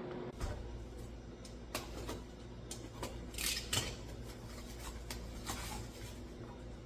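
Scattered light clicks and short rustles of small items being handled, over a steady low hum.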